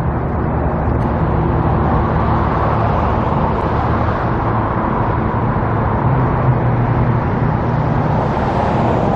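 Road traffic noise: vehicles running past in a steady stream with a low engine hum underneath, growing a little louder toward the end.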